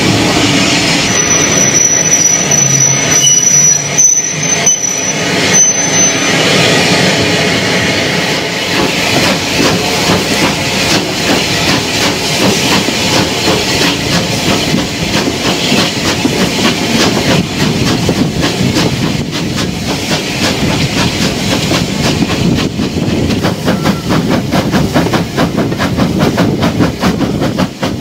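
Steam locomotive hauling its train, heard at close range from the carriage behind it. A thin high wheel squeal runs through the first few seconds as the train pulls through the station curve. The locomotive's exhaust beats come through fast and distinct in the second half.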